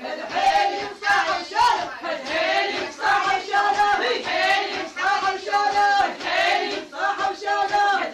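A group of women chanting a Shia latmiya lament in unison, pulsing in a steady rhythm, with regular sharp slaps of chest-beating in time with the chant.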